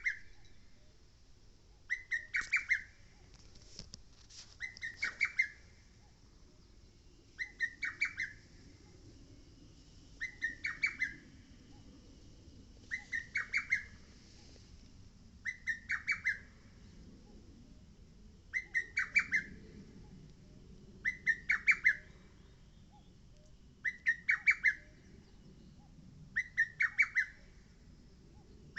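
Lesser cuckoo singing: a short phrase of about five quick, loud whistled notes, repeated every two to three seconds.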